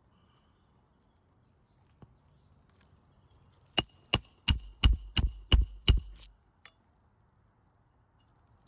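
Roofing hammer striking a metal roof snake seven times in quick succession, about three blows a second, each blow ringing metallically, driving a roofing nail up under a three-tab asphalt shingle.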